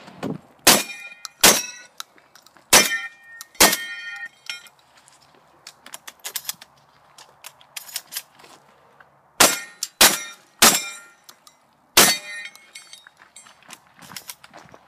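A Beretta 1301 semi-automatic 12-gauge shotgun firing a quick string of about five shots, then, after a pause of about five seconds, four more. Several shots leave a short metallic ring behind them.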